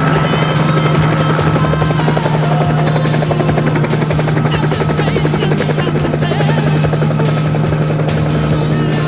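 Steady drone of a light aircraft's piston engine and propeller at constant power, with a fast, even pulsing throughout.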